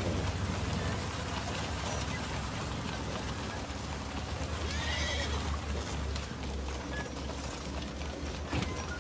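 Cavalry horses on the move, hooves clopping, with one horse whinnying about five seconds in, over a steady low rumble.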